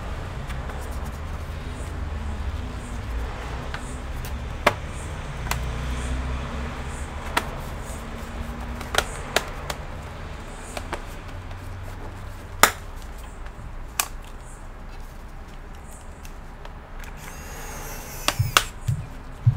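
Scattered sharp clicks and taps of small laptop parts and tools being handled during an SSD swap, spaced irregularly a few seconds apart and bunching together near the end, over a steady low rumble.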